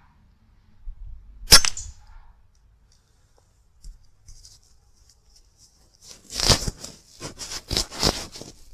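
A single shot from a .177 Ratworks R10 air rifle cracks once about a second and a half in. Later comes a quick run of sharp clicks and rustling, several in a row.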